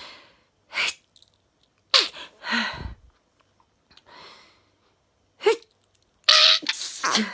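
A woman sneezing over and over in an allergy sneezing fit: several separate sharp sneezes with breaths drawn between them, the loudest and longest near the end.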